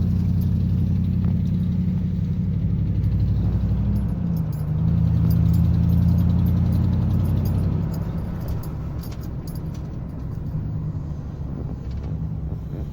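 2009 Ford F-150's V8 engine running, with a pitch change about four seconds in and quieter from about eight seconds. It carries the ticking that made the truck sound like a diesel, which Ford diagnosed as a bad left-side exhaust manifold.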